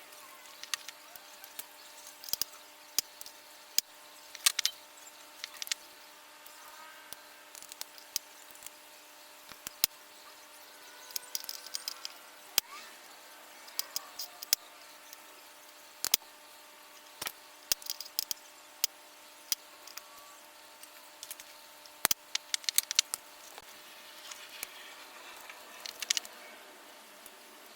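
Scattered small clicks, taps and rattles of objects being handled, some in quick clusters, over a steady faint electrical hum.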